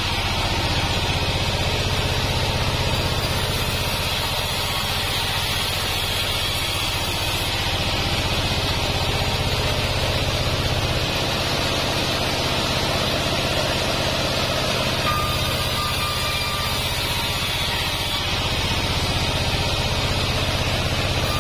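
Band sawmill running steadily, its blade sawing a waru log into boards, with a steady low machine drone under the cutting noise.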